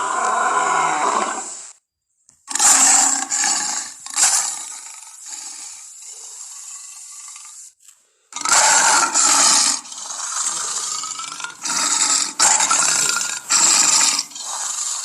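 A string of separate big-cat roar and growl clips given as tigon (lion-tiger hybrid) sound effects. Each cuts in and out abruptly, with short silent gaps about two seconds and eight seconds in.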